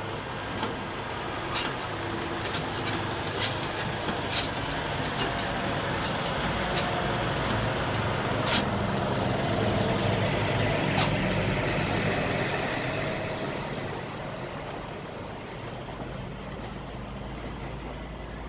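Semi-trailer landing gear being raised with its hand crank, hard going, the crank and gearbox giving sharp clicks at irregular intervals of roughly a second. A truck engine rumbles steadily underneath and gets louder in the middle.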